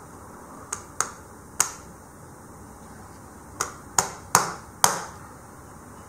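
Smartphone knocked repeatedly against a walnut shell: seven sharp knocks, three spread over the first two seconds, then four in quick succession about four to five seconds in.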